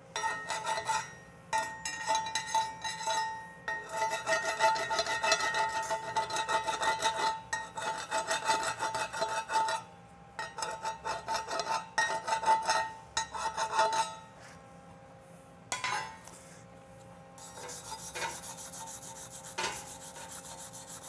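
Steel wire brush scrubbing slag off a 7018 stick-weld cap on steel plate: rapid strokes in spells, with the plate ringing, stopping about fourteen seconds in. Lighter scraping follows near the end.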